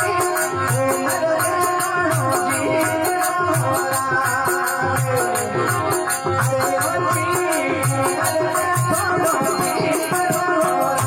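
Rajasthani devotional bhajan music: a low drum beat a little faster than once a second under continuous jingling percussion, with a melody carried over the top.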